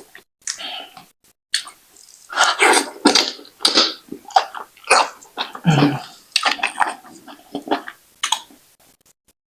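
Close-miked eating of fufu with slimy ogbono soup: wet, squelchy slurping and chewing noises in irregular bursts, with short silent gaps between them.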